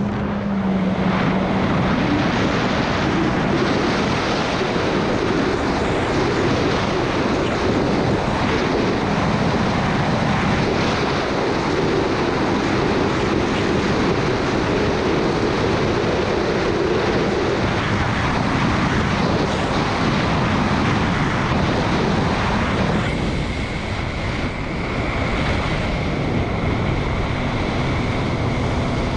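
Sea-Doo RXP 215 personal watercraft running hard at high speed, its engine and jet drive buried in a loud rush of wind and water on the bow-mounted camera's microphone. About 23 seconds in the rush lightens as it eases off, and a steady high whine sits over a lower engine note.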